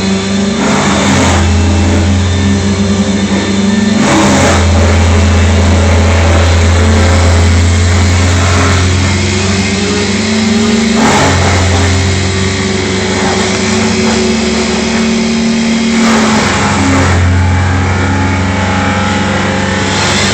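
Engine running loudly and steadily, its pitch and load shifting every few seconds.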